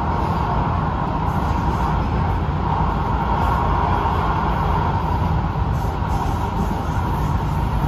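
Steady running noise inside an MBTA Green Line light-rail car in motion between stations: a deep rumble of wheels on rail under a steady mid-pitched hum.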